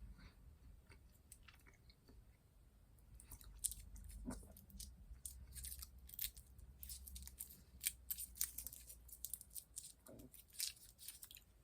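Faint, close-miked chewing and mouth sounds of a person eating, with many quick little clicks that grow busier about three seconds in.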